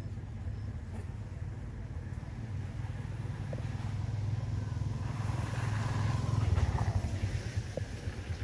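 A motor vehicle passing: a low engine rumble that builds to its loudest about six and a half seconds in, then fades.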